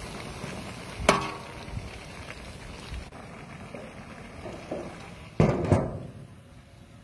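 A steel ladle knocks once against a large steel wok with a short metallic ring about a second in. Near the end, a domed metal lid is set down on the wok with a few loud clanks.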